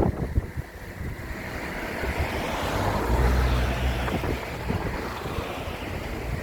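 Wind rumbling and rushing over the microphone, swelling to its strongest about halfway through and then easing off.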